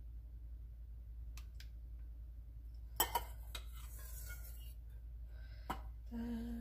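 Small stainless-steel and glass prep bowls clinking and tapping while eggs are separated: a few faint clicks, then sharper clinks about three seconds in and again near six seconds. A woman starts humming right at the end.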